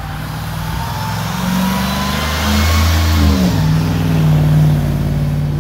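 School bus engine running as the bus drives past and pulls away, its pitch rising and then dropping about three seconds in.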